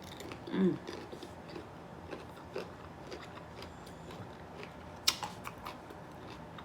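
A person chewing and crunching food close to the microphone, with many small wet clicks and one sharper crack about five seconds in.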